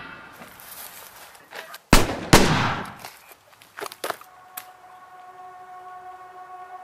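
Two gunshots about half a second apart, each with a long echoing tail, followed by a few fainter clicks. A steady drone of held tones sets in near the end.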